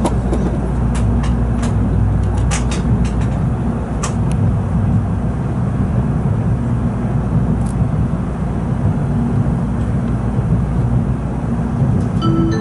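Steady low rumble of a Nozomi Shinkansen bullet train heard from inside the passenger cabin as it pulls out of the station, with a run of sharp clicks in the first few seconds. Near the end an onboard chime melody begins.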